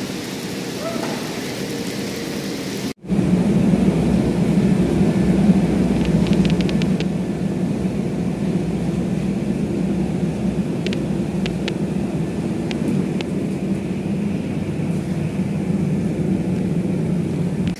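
Heavy rain pouring steadily. After a sudden cut about three seconds in, a louder steady rumble of a potato sorting line's conveyors and rollers takes over, with a few short clicks.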